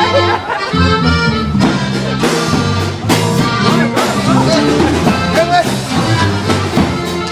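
Loud dance music with a repeating bass line and a steady beat.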